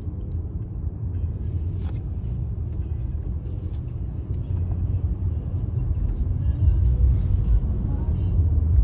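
Steady low rumble of a car driving on a snow-covered highway, heard from inside the cabin: tyre and road noise with the engine, growing a little louder toward the end.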